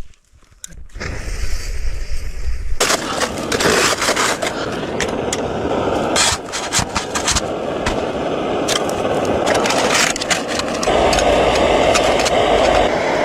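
Liquid-fuel camp stove lit and burning with a steady, loud rush of flame, with scattered sharp clicks and scrapes over it. The burner noise builds up over the first few seconds and grows louder again near the end.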